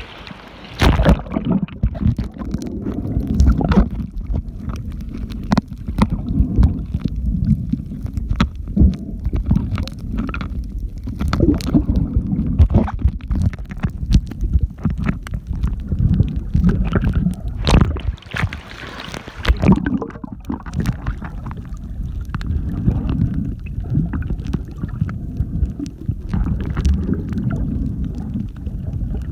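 Water noise picked up by a camera held underwater by a snorkeler: a steady low rumble with scattered clicks and a few louder rushes of splashing water.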